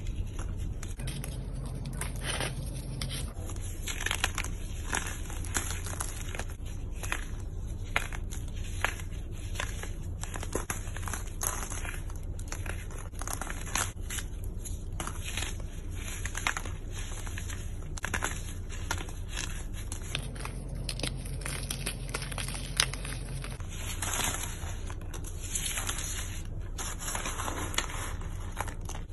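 Dry chalky chunks crushed and crumbled between fingers: a continuous run of irregular crisp crunches and crackles.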